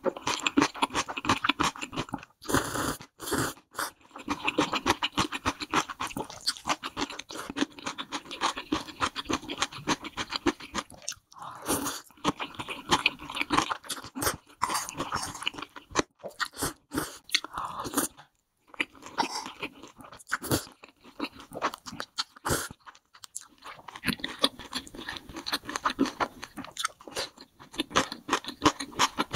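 Close-miked eating: a person chewing and slurping spicy noodles off a wooden spoon, a dense, irregular run of wet smacks and clicks with a few short pauses.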